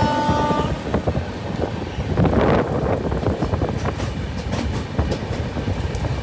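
Indian passenger train running at speed, heard from an open coach door: a steady rushing rumble, with the coach wheels clacking irregularly over the rail joints.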